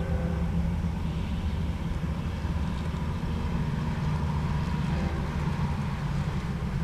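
Steady low diesel rumble of a BNSF freight train's locomotives. A faint horn chord sounds briefly at the start and again about five seconds in.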